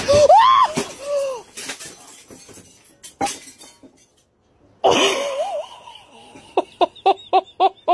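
A man's short cry as an inversion table with him on it tips over, with clattering knocks from its metal frame. Near the end comes hard laughter in rapid bursts, about five a second.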